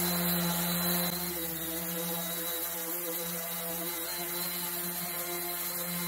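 Electric random orbital sander running steadily as it is worked over a wooden table top, a constant motor hum with the hiss of the pad rubbing off the old finish. It gets slightly quieter about a second in.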